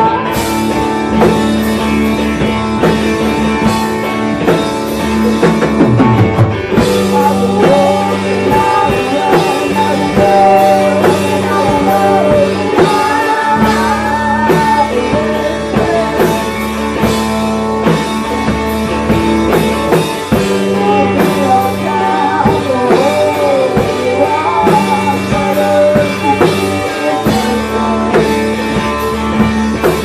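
Live rock band playing loud, with singing over electric guitar and drums, heard from the audience.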